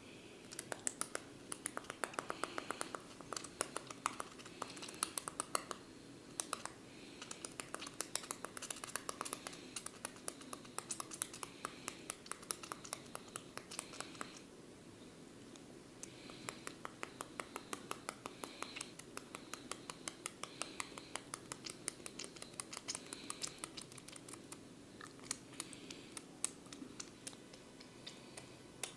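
A barber's fingers scratching and crackling on the client's hair and scalp close to the microphone. They make runs of quick, dry clicks like typing, with a short lull about halfway through.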